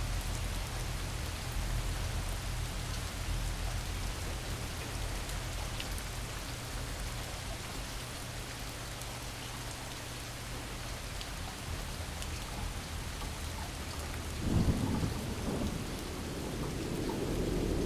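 Steady heavy rain with low rumbles of thunder, and a louder roll of thunder about three quarters of the way through.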